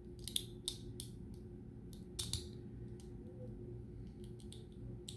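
Plastic LEGO pieces clicking and knocking together as they are handled and pressed on by feel, with a few sharp clicks in the first half and fainter ones near the end.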